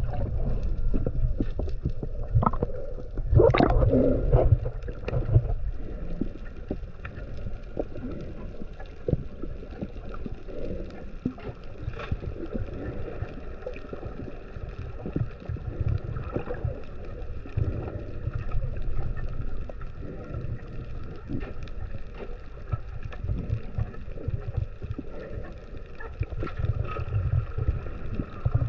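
Underwater sound through a submerged camera: a muffled, constant low rumble of moving water with scattered small clicks. A faint steady whine runs in the background, and there is a louder muffled swell about four seconds in.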